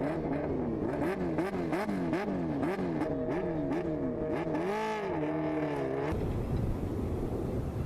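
High-revving racing engine revved again and again, its pitch climbing and dropping about twice a second, then swelling and falling once; from about six seconds in it gives way to a noisier rushing sound.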